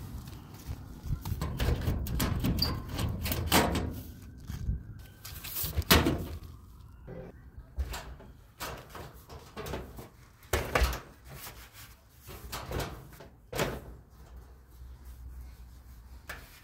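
Irregular knocks, clunks and scrapes of a clothes dryer's sheet-metal cabinet panels and parts being handled and fitted back together, with a few louder bangs near the start.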